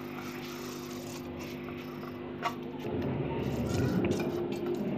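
Soaked rice poured from a bowl into an aluminium cooking pot, a soft rustling patter that grows louder about three seconds in, over a steady low hum.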